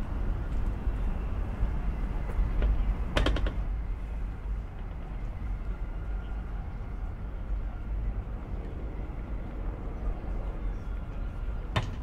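Outdoor city ambience: a steady low rumble with faint distant voices, broken by a short rattle of rapid clicks about three seconds in and another near the end.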